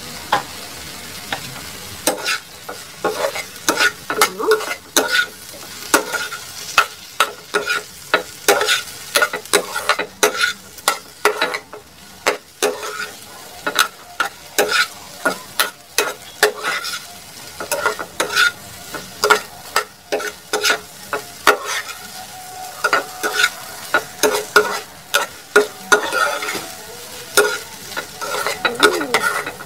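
Metal spatula scraping and clacking against a small frying pan as sliced okra is stir-fried, with a steady sizzle underneath. The strokes start about two seconds in and come quickly and unevenly, several a second.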